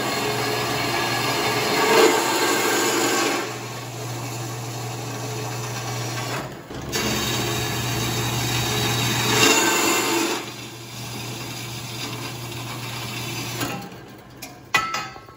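JET horizontal metal-cutting bandsaw running with a steady motor hum while its blade cuts through rusty square steel tubing, with two louder stretches of cutting noise. The saw cuts off near the end.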